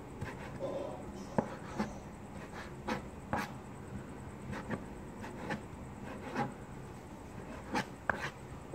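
Kitchen knife slicing cucumber tree fruit (bilimbi) on a cutting board: irregular sharp taps of the blade hitting the board, about one or two a second.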